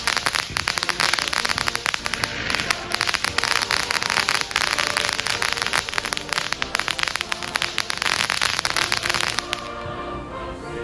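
Consumer fireworks crackling in a dense, rapid stream of pops over background music. The crackling cuts off suddenly about nine and a half seconds in, leaving only the music.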